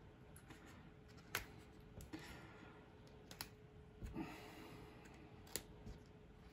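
Faint snips of small scissors cutting a leathery python eggshell: a few sharp clicks a second or so apart, with soft rustling as the shell is pulled up.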